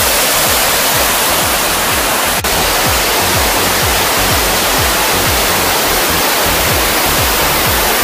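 Duduma Waterfall on the Machkund River roaring: a loud, steady rush of falling water, with one brief dropout about two and a half seconds in.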